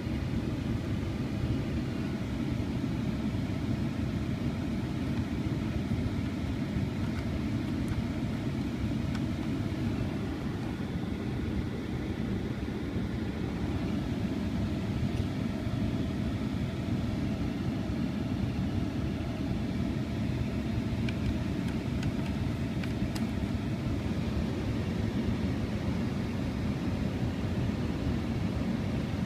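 Steady low rumble and rush of air inside the cab of a 2014 Ram 1500 pickup, from the running truck and its climate-control fan, with a few faint clicks.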